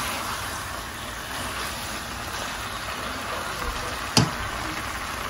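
Curry chicken pieces sizzling in a pot as a spatula stirs them, with one sharp knock about four seconds in.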